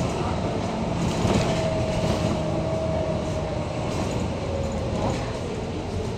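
Inside a moving double-decker bus: steady engine drone, road noise and rattles, with a thin whine that rises out of the noise for a couple of seconds in the middle.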